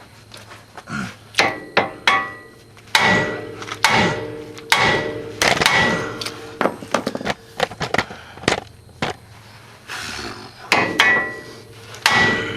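A hammer striking steel repeatedly in irregular blows, about fifteen in all, several leaving a short metallic ring, on the front axle and suspension parts of a car during a CV axle replacement, as a stuck part is knocked to free it.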